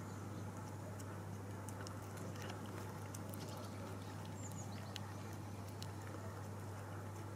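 A cat chewing dry kibble, heard as irregular short crunching clicks, over a steady low hum.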